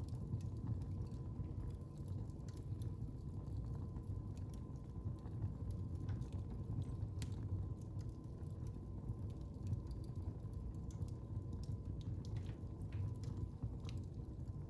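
Wood fire crackling in a fireplace: a steady low rumble of burning logs with irregular sharp pops and snaps.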